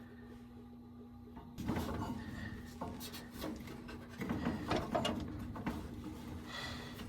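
Irregular scraping, rubbing and knocking of hands working around a furnace blower, over a steady low hum; it begins about a second and a half in.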